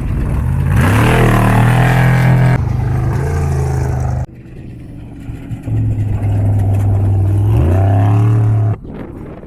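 Off-road race vehicle engine revving hard and climbing in pitch as it accelerates, then cutting off abruptly about four seconds in. A second burst of hard revving follows, climbs in pitch again and stops suddenly shortly before the end.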